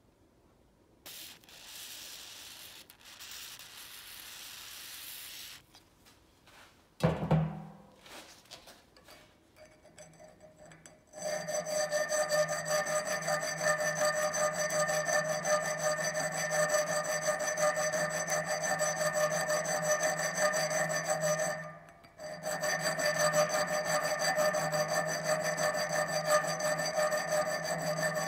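Small electric rotary tool running at a steady pitch, its thin bit scraping rust out of the worm screw's threads on an adjustable wrench; it stops briefly about three-quarters through and starts again. Before it starts there is a soft hiss and a single knock.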